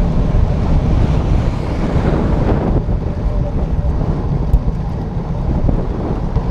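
Wind buffeting the microphone of a camera on a moving bicycle, a loud, steady low rumble.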